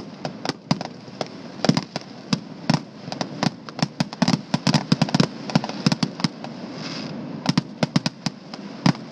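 Fireworks going off in a rapid, irregular string of sharp bangs and pops, thickest in the middle. There is a brief hiss about seven seconds in.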